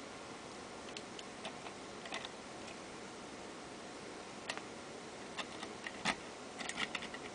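Light metallic clicks of a Bogota rake and tension wrench working the pins of an old brass Bird rim cylinder, scattered through, with a louder click about six seconds in and a quick run of clicks near the end. A faint steady hiss lies underneath.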